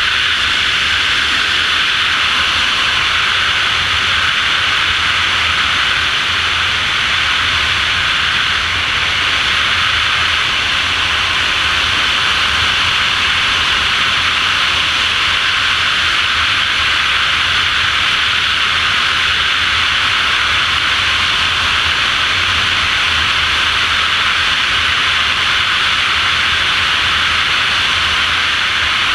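Loud, steady rush of wind over a GoPro camera in wingsuit flight: an even hiss with a low rumble underneath.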